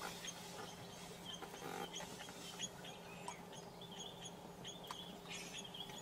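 Faint chirping of small birds: a run of short high notes, several a second in places, over a low steady hum.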